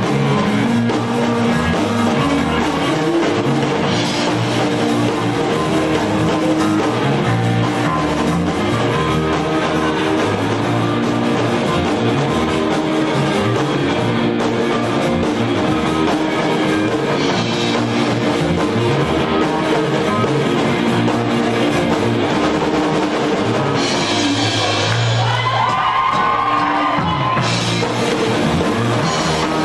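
Live rock band playing: drum kit, electric guitars and bass, loud and steady, with a high bending note a few seconds before the end.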